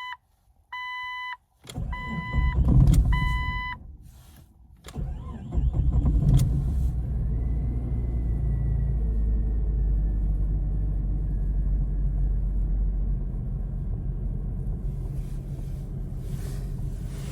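Jeep Cherokee XJ warning chime beeping in short repeated tones while the engine cranks. The engine starts about five seconds in and settles into a steady idle.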